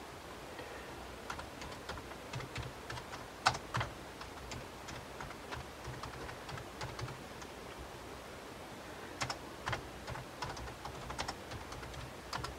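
Keys clicking on a computer keyboard as a command is typed, in two uneven runs with a lull between them.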